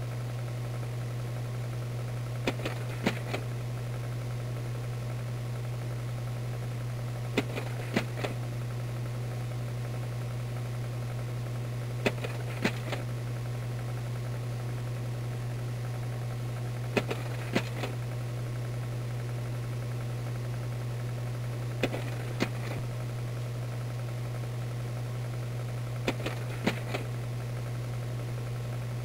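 Slide projector running with a steady fan-motor hum, and a pair of mechanical clicks about every five seconds as it changes slides.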